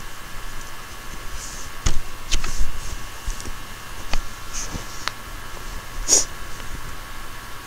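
Hand crocheting at close range: soft yarn rustles and scattered light clicks and knocks from the hook and hands, over a faint steady electrical whine.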